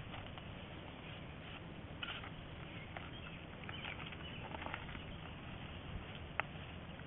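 Faint scattered scuffs and clicks from grooming and tacking up a tied horse standing on gravel, over a steady background hiss.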